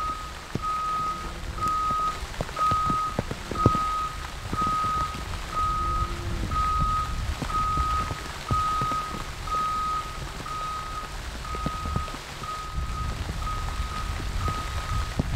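Telehandler's warning alarm beeping steadily about once a second over the low rumble of its engine, with a few sharp knocks, the loudest about four seconds in.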